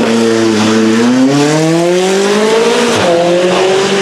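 McLaren 570S race car's twin-turbo V8 accelerating hard off the start line, the revs climbing for about two seconds, with an upshift about three seconds in, after which they climb again.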